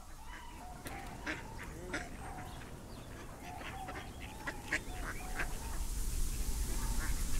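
Many birds calling at once in short, overlapping calls. In the last couple of seconds a rushing hiss with a low rumble builds up under them.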